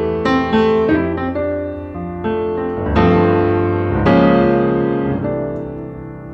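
Background piano music: a melody of struck notes, each fading away, over low bass notes, with fuller chords struck about three and four seconds in.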